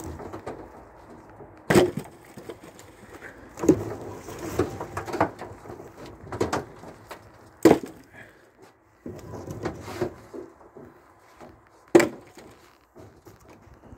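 Heavy beech firewood logs knocking against one another as they are lifted and thrown off a metal trailer. About seven sharp knocks come at irregular intervals, and the loudest two fall a little past halfway and near the end.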